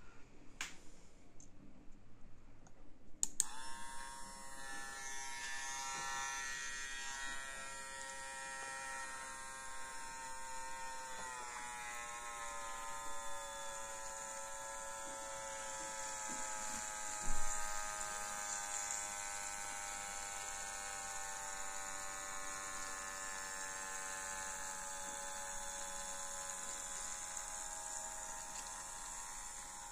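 A small brushed DC motor on a homemade can jet ski model clicks on about three seconds in and runs with a steady whine. Its pitch drops slightly about a third of the way through, and a single knock comes about halfway.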